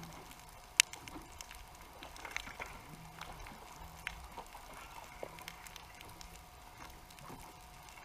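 Underwater reef ambience picked up through a camera housing: scattered sharp clicks and crackles, one louder click about a second in, over a faint steady hum.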